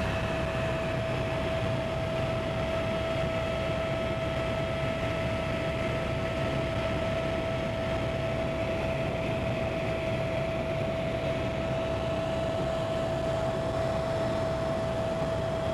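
Helicopter running steadily in flight: a constant whine over a low rumble, even in level throughout.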